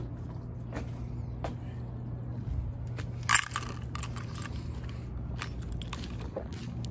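A drink being sipped through a straw, with a short loud slurp about three seconds in. Scattered light clicks and rattles sound throughout over a steady low hum.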